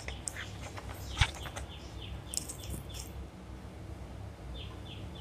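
A small bird chirping: short falling chirps, and near the end a regular run of about three a second. There is a single soft knock about a second in, over a low steady hum.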